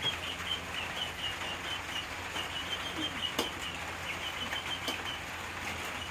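Insect chirping steadily, a run of short high chirps at about five a second with brief pauses. There is a single sharp click about three and a half seconds in.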